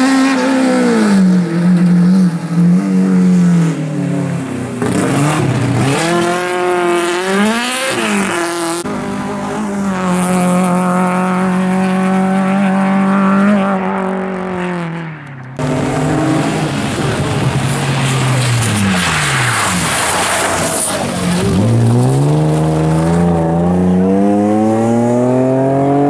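Rally cars at full throttle on an asphalt stage, the engine pitch climbing and dropping sharply again and again through gear changes. About fifteen seconds in the sound switches abruptly to another car, which slows and then accelerates hard away.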